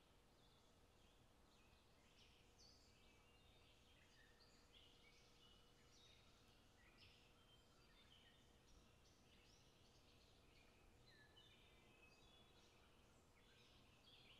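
Near silence: faint steady hiss with many faint, short high chirps throughout.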